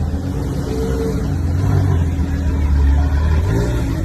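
Porsche Gemballa Mirage GT's V10 engine running steadily with a deep, low drone, rising briefly in pitch about three and a half seconds in.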